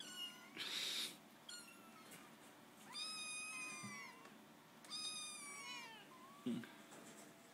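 Kittens mewing: four high-pitched mews, the two longer ones falling in pitch at the end. There is a brief burst of noise about half a second in.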